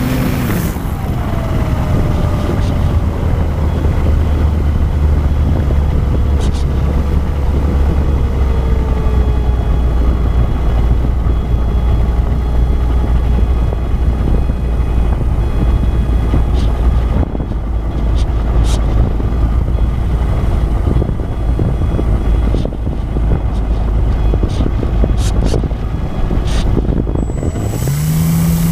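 Wind rushing over the onboard GoPro of an E-flite Apprentice RC plane gliding with its electric motor throttled back. The motor's pitch falls away about a second in and rises again near the end as the throttle comes back up, with a few light clicks in the latter half.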